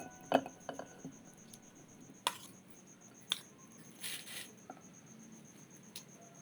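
A cricket chirping in a steady, rapid high-pitched pulse, with a few sharp clicks and knocks scattered through, the loudest about a third of a second in, and a brief rustle near the middle.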